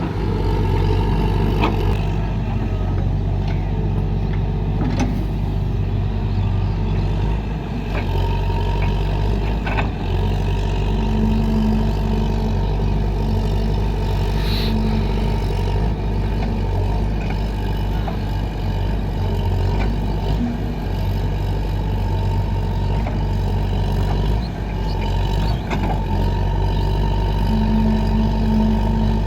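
Excavator's diesel engine running steadily at work, with a few brief clicks and knocks and a short hum that comes and goes a few times.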